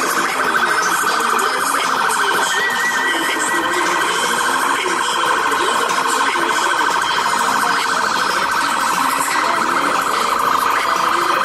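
A steady, rapidly pulsing electronic alarm tone, like a car alarm, sounds without a break, over a background of traffic and a crowd.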